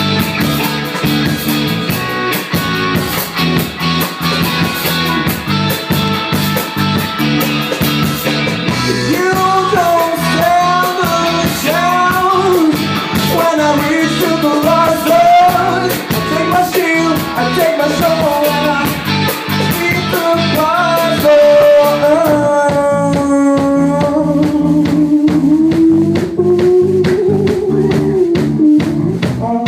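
Guitar-driven rock music with a steady beat. About nine seconds in, a lead melody line enters, bending and sliding in pitch.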